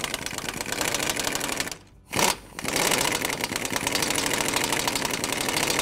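Half-inch air impact wrench hammering on a 14 mm bolt to loosen it: a run of about two seconds, a short pause with a brief blip, then another run of about three seconds.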